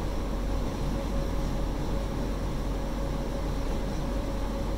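Steady ventilation noise in a small room: an even low hum and hiss with a faint steady tone.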